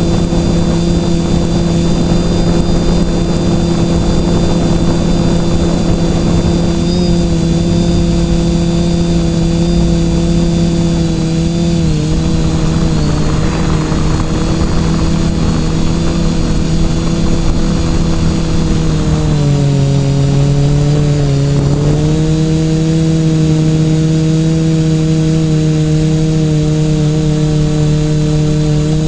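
TBS Discovery quadcopter's brushless motors and propellers whining steadily. The pitch dips briefly about twelve seconds in, then drops lower for a couple of seconds before rising back as the motors slow and speed up again.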